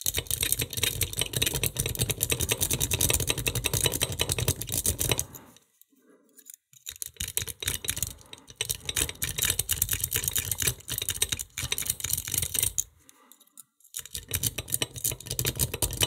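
A metal lock-pick rake is jiggled rapidly back and forth in the keyway of a 1980s Assa wafer bike lock under heavy turning tension. It makes a fast run of clicks and scrapes against the wafers, stopping briefly twice, and the lock does not open.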